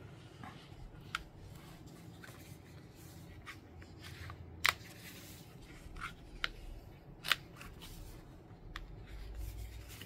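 Hands handling a passport-size Traveler's Notebook as refill booklets are fitted under its elastic cords: soft paper and cover rustling with scattered small clicks and taps, and two louder clicks about halfway and about two-thirds of the way through.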